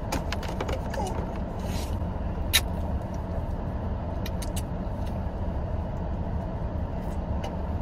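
Steady low hum of a stationary car's cabin with a few faint short clicks over it, the sharpest about two and a half seconds in.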